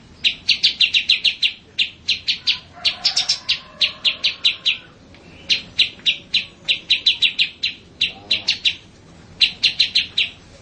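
Small songbirds chirping in quick, sharp runs of about six to ten notes each, the runs repeating every second or so with short gaps between.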